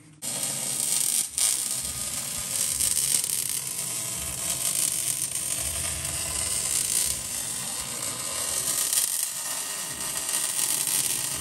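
Welding arc crackling and sizzling steadily as a steel transfer-case wrap is welded onto a truck frame, with a brief break about a second in.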